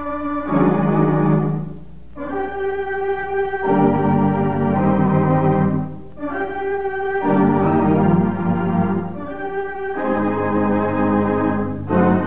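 Organ music accompaniment playing slow, held chords that change every couple of seconds, briefly dipping in volume twice.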